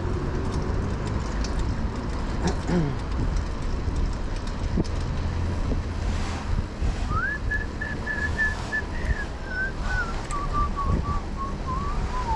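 A person whistling a tune about seven seconds in: a few held high notes, then a run of short notes stepping downward, over steady wind rumble on the microphone and street noise.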